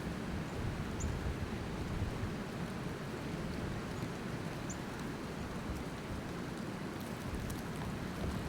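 Steady rushing wind of a snowstorm, rumbling low on the microphone. Two faint, short high chirps from small birds come about a second in and near the middle.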